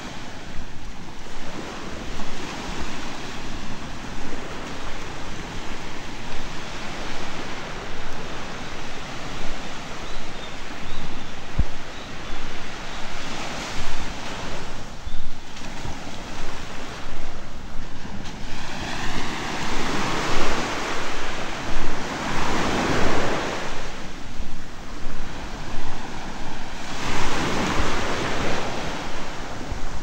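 Small waves washing up on a sandy shore, with wind gusting over the microphone; the wash swells louder a few times in the second half.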